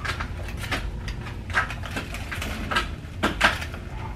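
Biting and chewing a crispy fried chicken sandwich topped with Cheetos: a run of short, irregular crunches, over a steady low hum.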